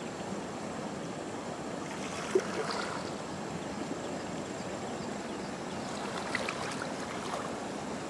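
Water swishing and sloshing as a person wades waist-deep through a stream, with sharper splashes about two and a half seconds in and again about six seconds in.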